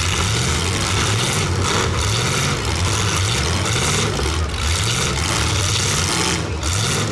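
Demolition derby cars' engines running and revving over one another, their pitch rising and falling over a dense, steady wash of noise.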